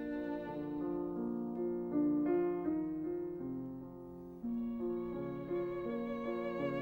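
Background music: slow, sustained violin melody over piano chords, the violin playing with vibrato in the second half.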